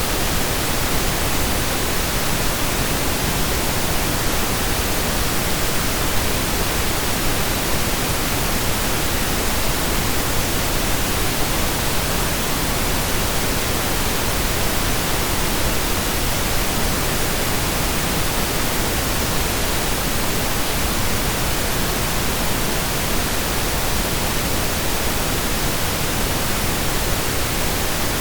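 Synthesised pink noise: a steady, even hiss spread across the whole range like constant rain, with no changes or events.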